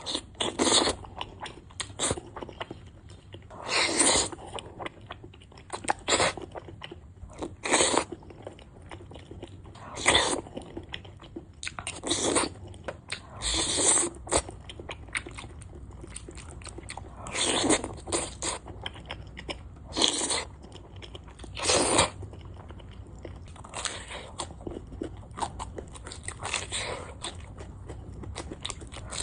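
Close-miked eating of a spicy yuxiang eggplant rice bowl: a loud mouthful about every two seconds, with smaller chewing clicks in between.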